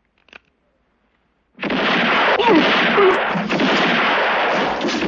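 A near-silent pause with one faint click, then about a second and a half in a loud burst of gunfire starts and keeps going, several shots running together into one dense noise.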